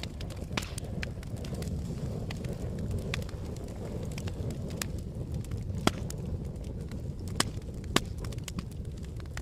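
Campfire burning, a steady low rush with scattered sharp crackles and pops, three louder snaps in the second half.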